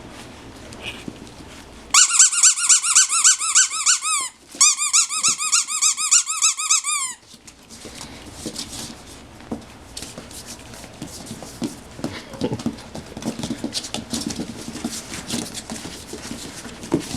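A loud run of rapid high-pitched squeaks, about five a second, lasting some five seconds with a brief break partway, amid puppies at play. Faint scuffling and clicks follow.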